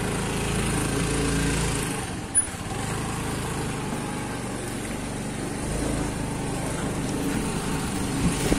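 Motorcycle engine running steadily as the bike rides along a street at low speed, with a brief click about two and a half seconds in.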